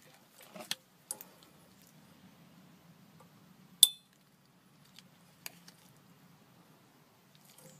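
A few sharp metallic clinks and ticks of pliers working at the thin steel flange of a Speedi-Sleeve on a crankshaft. The loudest is a single ringing clink nearly four seconds in.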